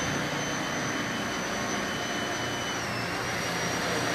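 Steady city street noise, an even hiss of traffic, with a faint thin high whine that dips slightly in pitch about three seconds in.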